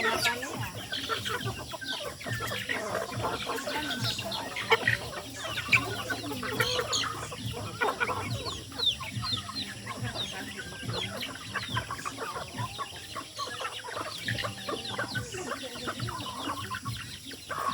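A flock of chickens clucking, with many short calls overlapping.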